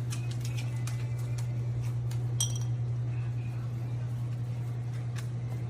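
Light clinks and taps of dishes or utensils, one of them a ringing glassy clink about two and a half seconds in, over a steady low hum.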